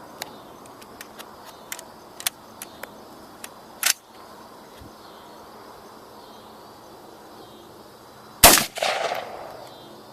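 A single rifle shot from a Bushmaster AR-15 in .223, firing steel-case Tula ammunition, comes near the end and rings off with an echo. Before it there are light scattered clicks and one sharper crack about four seconds in.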